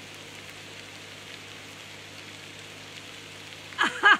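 Cubed potatoes with cumin and mustard seeds sizzling steadily in a frying pan. A woman's voice comes in near the end.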